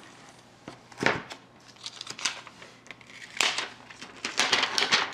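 Clear plastic wrap crinkling as it is peeled and pulled off a new tablet by hand. One sharp crackle comes about a second in, a few scattered ones follow, and the crinkling grows denser near the end.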